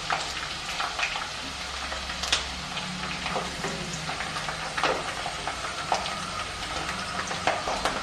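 Garlic, green chillies and curry leaves sizzling in hot oil in a kadai, with scattered sharp pops, while a wooden spatula stirs them through the oil.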